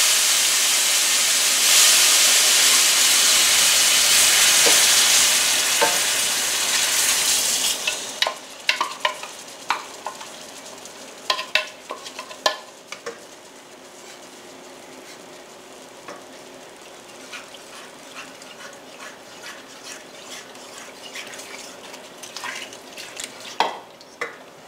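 Chicken broth poured into a hot skillet of browned chicken and flour, sizzling loudly as it hits the pan and turns to steam; the sizzle dies away about eight seconds in. After that a wooden spoon stirs and scrapes the stainless steel pan, with scattered light clicks.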